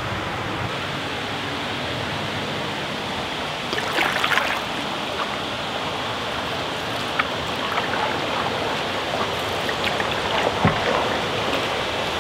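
Steady rush of moving river water, with splashes and knocks of a canoe paddle dipping into it: a cluster about four seconds in and a few sharper ones later.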